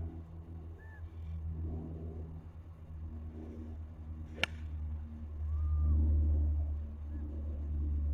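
Golf cart driving with a steady low rumble that swells about two-thirds of the way through. One sharp click comes about four and a half seconds in.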